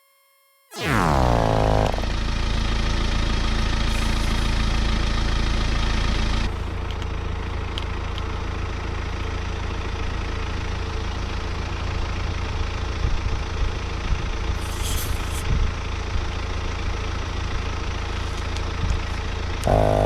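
Portable electric tyre inflator starting up suddenly about a second in and then running steadily, pumping air into an underinflated car tyre. It gets a little quieter about six seconds in.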